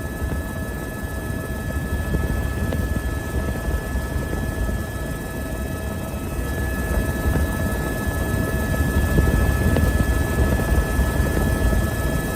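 Helicopter running steadily: a low rumble with a steady high whine of several fixed tones over it.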